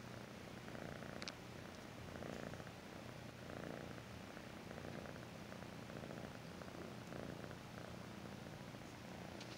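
Kitten purring steadily close to the microphone, the purr swelling softly with each breath about once every second or so.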